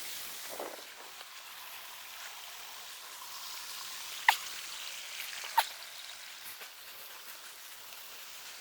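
Mountain stream and small waterfall running over rocks, a steady watery hiss, with two sharp clicks a little over a second apart near the middle.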